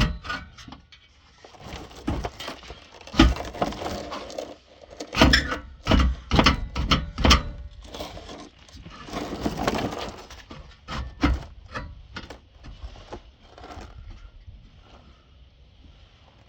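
Irregular metal knocks and clanks with short stretches of scraping, from work on a car's exhaust pipe and muffler. They are busiest in the middle and thin out near the end.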